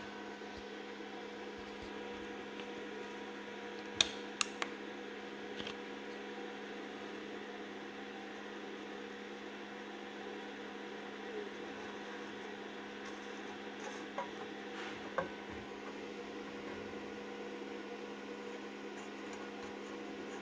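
Steady hum with several fixed tones, broken by a few sharp clicks: three close together about four seconds in, and two more around fourteen to fifteen seconds.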